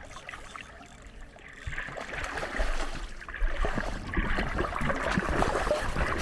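Stream water running and splashing, a crackly rush that grows louder about two seconds in.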